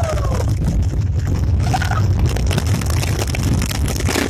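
Ground fireworks barrage firing: a dense, continuous crackle of bursting charges over a steady low rumble.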